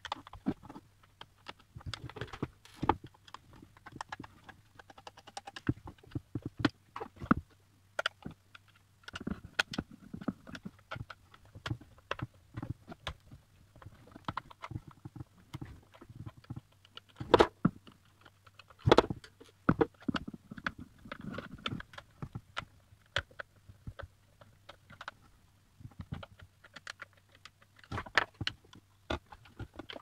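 Screwdriver work and handling of an electric kettle's plastic base as it is taken apart: irregular clicks, taps and scrapes of the screwdriver, loose screws and plastic parts on a table, with two louder knocks just past the middle.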